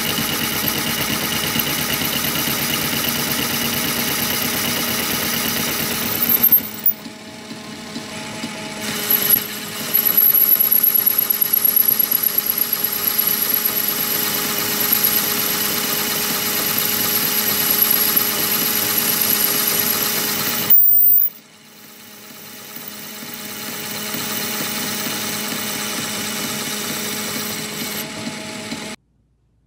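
Old South Bend metal lathe turning the outside diameter of a sprocket ring with a carbide insert tool, the cut now biting and throwing chips. The noise is steady with a thin high whine over it, shifts abruptly a few times, and stops suddenly near the end.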